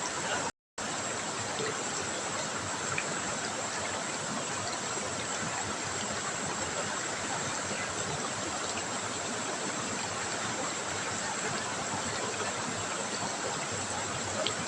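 River water trickling and rushing over rocks, a steady even flow. The sound cuts out completely for a moment about half a second in.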